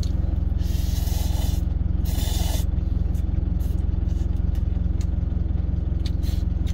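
Two long slurps of instant cup noodles, the first about half a second in and the second about two seconds in, with a few small mouth clicks after them. Under them runs the steady low hum of the idling truck engine in the cab.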